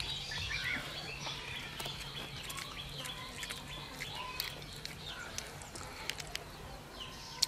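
Faint scattered bird chirps and calls, with a few small clicks now and then.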